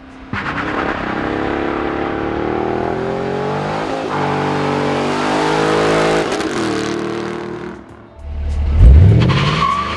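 Holden Commodore SS ute's V8 held at high revs during a burnout, with tyre squeal over it and the engine pitch wavering. It eases off about eight seconds in, then comes back with a loud rising rev near the end.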